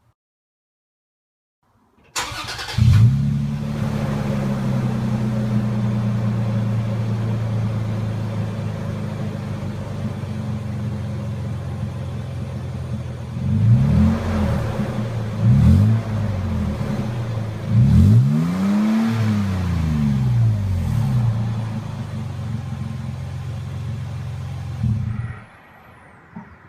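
2015 Toyota Tacoma's 4.0 L V6 through an aftermarket TRD cat-back exhaust: it starts after a moment's silence and settles into a steady idle. It is then revved three times, the third rev the longest, and shut off near the end.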